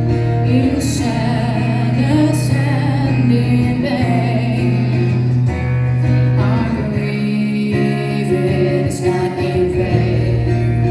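Live acoustic performance: a woman's voice singing a slow melody with vibrato over acoustic guitar accompaniment.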